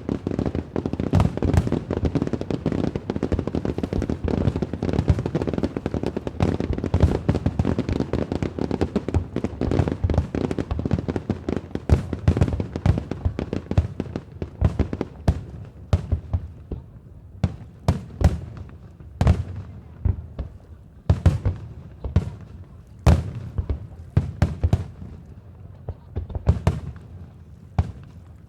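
Aerial fireworks going off: a dense, rapid barrage of bangs and crackling for about the first half, then separate loud shell bursts with short gaps between them, thinning out near the end.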